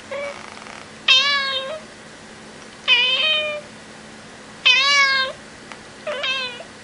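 A cat meowing while it licks a treat from a squeeze tube: a short, quieter meow at the start, then four loud meows about two seconds apart.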